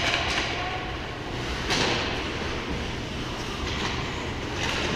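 Ice hockey skates scraping and carving on the ice, with sharp hissing scrapes about a second and a half in and again near the end, over the steady low rumble of the rink.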